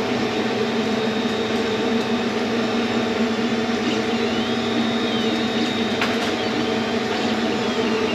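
A steady machine hum with a low drone, running evenly without a break, with a few faint ticks and short whistling glides over it.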